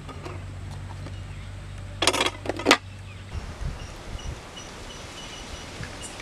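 A knife scraping and cutting ribbon fish on a metal platter: two short scrapes about two seconds in. A few soft knocks follow.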